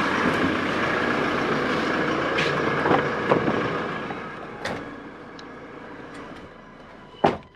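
A car idling with a steady hum, growing quieter after about four seconds, with a few light clicks from the door and seat as someone climbs into the back. Near the end the rear door shuts with one solid thud.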